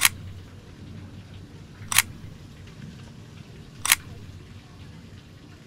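Camera shutter clicks, three of them evenly spaced about two seconds apart, over a low steady background hum.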